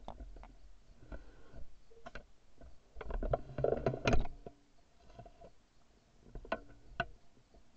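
Shotgun handling noise: irregular clicks, knocks and rustling as the gun is lowered and its barrel brushes through long grass, with a busy cluster of knocks about three to four seconds in and a few sharp clicks near the end.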